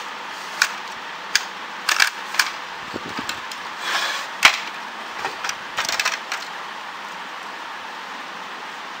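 Plastic parts of a disassembled Epson L380 printer clicking, knocking and briefly scraping as they are handled and fitted together, a dozen or so sharp clicks with the loudest knock about four and a half seconds in. The handling stops about two-thirds of the way through, leaving a steady hiss.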